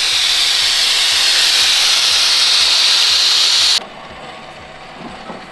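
Caravan air-suspension airbags venting air while being levelled: a loud, steady hiss that cuts off abruptly a little under four seconds in.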